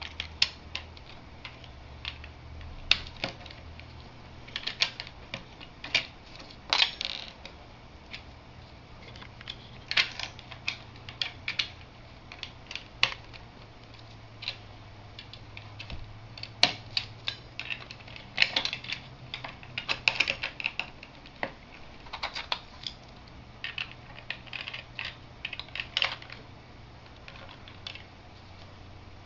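Plastic LEGO bricks clicking and clattering as they are handled, picked from a loose pile and pressed together. The clicks come irregularly, singly and in quick clusters of several.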